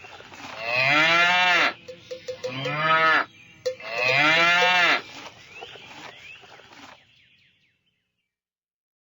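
Cow mooing three times in a row, long calls that rise and then fall in pitch, the last one the longest.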